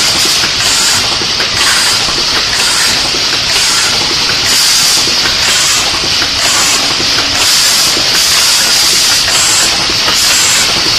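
An automatic tube foil-sealing and capping machine running steadily, with short hissing bursts at an even rhythm, a little over one a second, as it cycles. Clatter from the indexing turret runs underneath.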